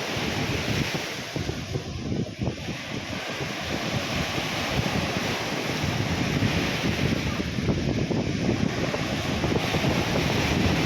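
Sea waves breaking and washing up a sandy beach, the hiss of the surf swelling twice, with wind buffeting the microphone in a heavy low rumble.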